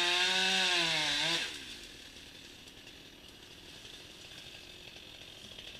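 Chainsaw held at full throttle through a cut, running at a high, steady pitch. About a second and a half in it comes off the throttle and the sound falls away, leaving only faint background noise.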